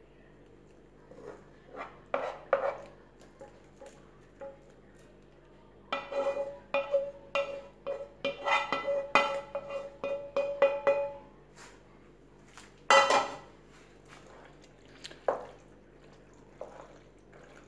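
Wooden spoon scraping cream sauce out of a metal frying pan into a pot of penne, with repeated knocks and clatters of spoon and pan against the pot that ring briefly. A quick run of taps comes around the middle, then one loud clang about 13 seconds in, and softer stirring taps near the end.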